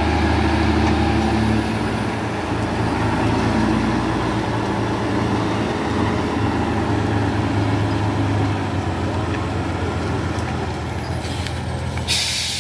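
Heavy diesel engines of a motor grader and a truck it is towing, running steadily under load as the truck is pulled through deep mud. A short hiss comes in near the end.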